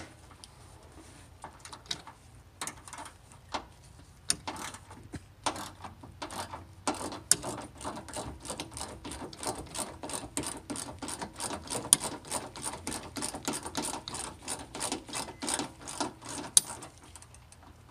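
Hand ratchet wrench clicking as a screw is backed out: a few scattered clicks at first, then steady rapid clicking from about seven seconds in.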